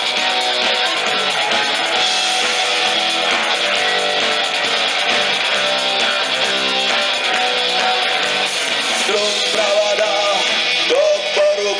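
Live rock band playing an instrumental guitar intro, with strummed guitar chords throughout. A wavering lead melody line comes in about nine seconds in.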